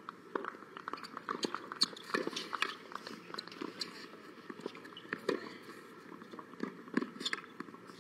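A tennis point being played on a hard court: irregular sharp taps from racket strikes and ball bounces, mixed with footsteps scuffing the court.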